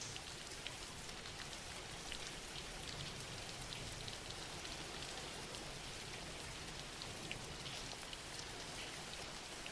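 Steady, soft rain falling on a surface, with many small drops pattering.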